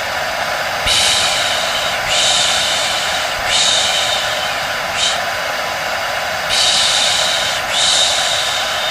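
A steady hair dryer drone with a person shushing over it, a long 'shh' about once every second and a half, each lasting about a second.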